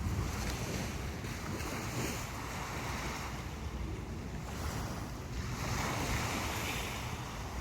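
Sea waves breaking and washing up on a sandy beach, rising and falling every couple of seconds, with wind rumbling on the microphone.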